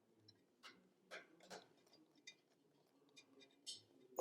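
Faint, irregular clicks and light taps, about a dozen spread unevenly, from small tools and computer parts being handled during reassembly.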